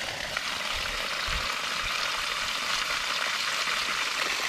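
Water jetting under pressure from an opened ball valve on a PVC penstock drain and spattering onto wet leaves: a steady hissing rush. It is the lower penstock pipe, still full of water, being drained.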